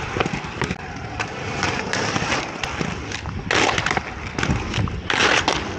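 Aggressive inline skate wheels rolling over rough concrete with small clicks, and two louder scrapes about three and a half and five seconds in as the skates meet the concrete ledge.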